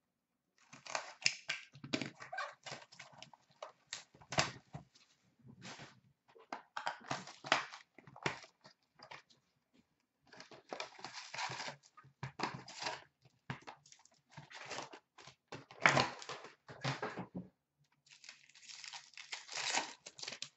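A hockey card hobby box being torn open and its foil packs handled: irregular bursts of tearing, crinkling wrapper and rustling cardboard, broken by short pauses.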